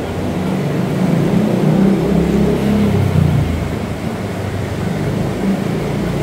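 A motor vehicle's engine passing on the street, swelling about a second in and easing off after about three and a half seconds, over steady street noise.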